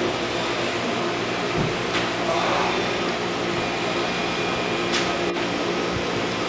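Steady machinery hum with an even hiss, with a couple of faint ticks about two and five seconds in.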